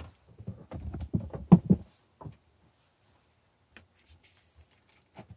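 A run of knocks and bumps on a craft desk in the first two seconds, the loudest about a second and a half in, as the Glimmer hot foil machine is switched off and lifted away. Then a few faint clicks and a short hiss.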